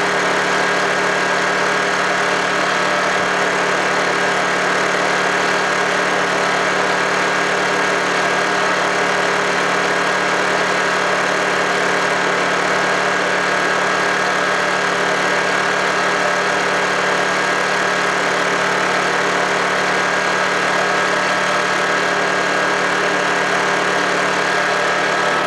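Small Honda portable generator engine running steadily at a constant speed, fast enough that the owner finds it faster than it should run.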